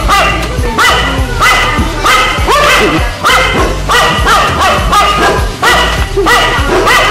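Dogs barking again and again over background music with a steady beat.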